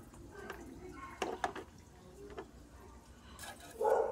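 Small brush scrubbing wet, detergent-coated air-conditioner parts: soft wet scrubbing with scattered clicks and drips, and a louder short burst near the end.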